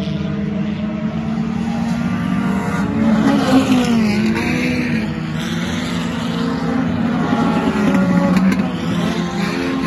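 Several sport compact race cars' four-cylinder engines running hard as the field races past, overlapping engine notes. The pitch swings down and up as cars go by, loudest about three and a half seconds in and again around eight seconds.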